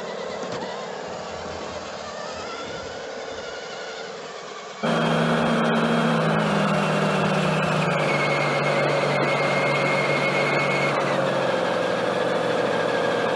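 Radio-controlled model DUKW amphibious truck driving, heard through a camera mounted on the model: a steady mechanical whine that starts suddenly about five seconds in and drops in pitch twice as it goes.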